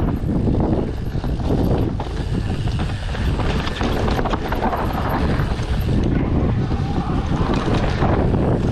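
Wind buffeting the microphone as a mountain bike is ridden, a heavy steady rumble with scattered clicks and rattles from the bike on rough ground.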